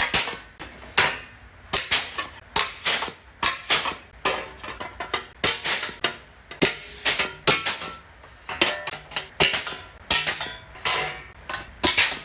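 Hammer blows on car-body sheet steel. The strikes come sharp and irregular, about one or two a second, each ringing briefly like metal.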